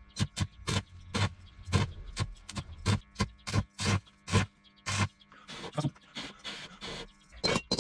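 Welder laying short tack bursts to close a hole in a steel helmet shell: a string of brief crackling pulses, about two a second.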